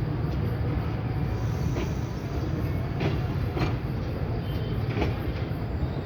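Passenger train rolling past at low speed as it pulls out: a steady rumble, with a sharp clack every second or so as the wheels cross rail joints.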